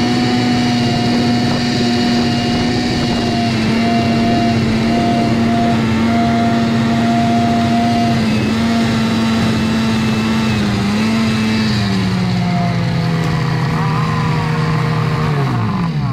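Two-stroke engine running at a steady high speed, then falling in pitch over the last few seconds and winding down near the end.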